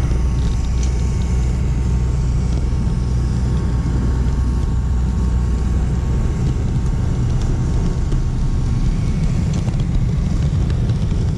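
Model train running through a tunnel, heard from a camera riding on it: a steady low rumble of wheels and motor with a faint steady whine.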